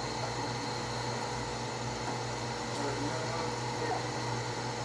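Steady low hum with an even hiss, like a running fan or air conditioning in a small room, with no sudden sounds.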